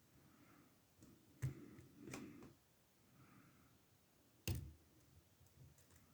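Faint metallic clicks and scraping of a lock pick and tension wrench working the pins of an older Ruko oval cylinder in an ASSA padlock, with two sharper clicks about a second and a half and four and a half seconds in.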